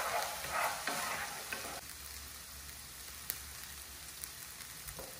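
Sofrito of onion and bell pepper in achiote butter sizzling in a frying pan, with a spatula stirring and scraping through it a few strokes in the first two seconds; after that only a steady soft sizzle as it keeps frying down.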